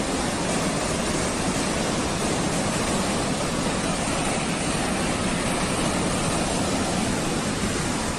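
Steady rushing noise with no pauses or distinct events, spread evenly from low to high pitch.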